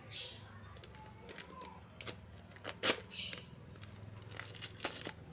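Small plastic packaging and accessories being handled during an unboxing: scattered clicks and brief rustles, with one sharp click a little under three seconds in.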